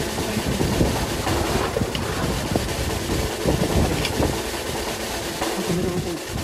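Wind buffeting the microphone aboard a fishing boat at sea: irregular low thumps over the boat's steady background noise.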